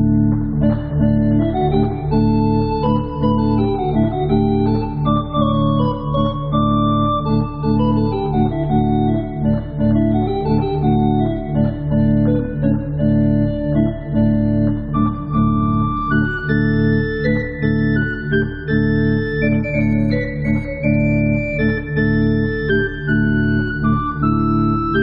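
Church organ playing: sustained low notes under several moving melodic lines above, at a steady level.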